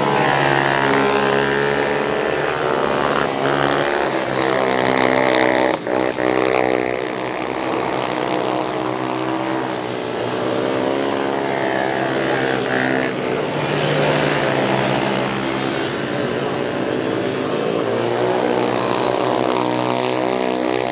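Small racing ATV engines revving hard, the pitch climbing under acceleration and falling as the throttle is eased, over and over as the quads race through the corners. The sound breaks off sharply for a moment about six seconds in.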